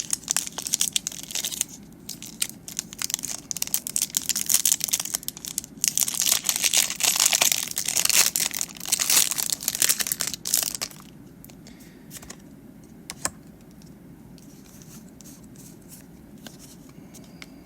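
Foil wrapper of a Pokémon card booster pack being torn open and crinkled, a dense crackling for about eleven seconds, then only a few faint clicks of the cards being handled.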